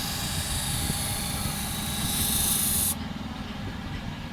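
Motor-driven grinding wheel running with a steady low rumble while a steel knife blade is held against it, giving a loud high grinding hiss. The hiss cuts off suddenly about three seconds in as the blade is lifted, and the motor keeps running.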